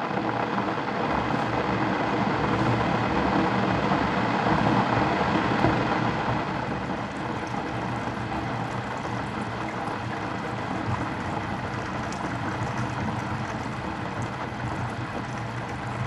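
Electric kettle heating water: a steady rumbling hiss with a low hum under it, swelling over the first few seconds and easing slightly about six seconds in.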